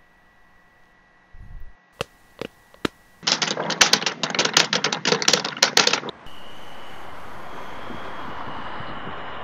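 A few separate clicks, then fast typing on a Lenovo computer keyboard, the keys clattering rapidly for about three seconds. It stops abruptly and gives way to a steady hiss.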